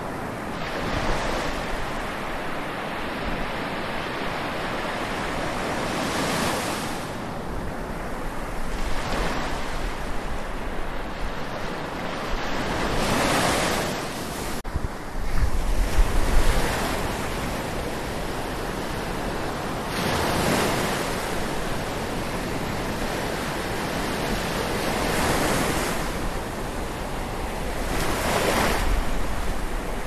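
Ocean waves lapping and washing on the shore, the surf swelling every few seconds. Wind rumbles on the microphone a little past the middle and again near the end.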